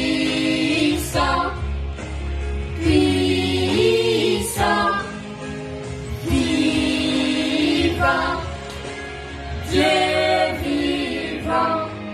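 A woman and children singing a worship song together in harmony, in sustained phrases over a steady low musical accompaniment.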